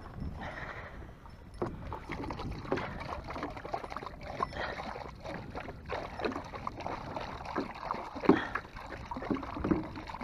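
German shorthaired pointers lapping water, a string of irregular wet laps and splashes.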